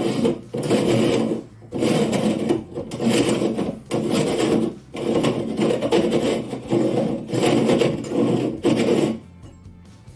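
The threaded metal guard cage of an old incandescent jam-jar light fixture being unscrewed by hand, its threads scraping in repeated turns about once a second, stopping near the end.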